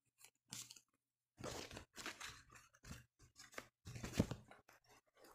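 Close rustling and crinkling of paper booklets and a fabric backpack being handled and packed, in irregular bursts. The loudest burst comes about four seconds in.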